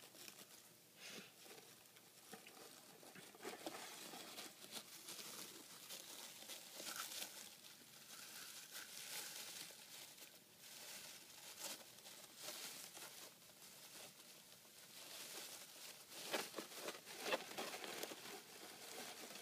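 A pet hedgehog burrowing through loose wood-shaving bedding: faint, irregular rustling and crackling of the shavings as it digs and pushes through them.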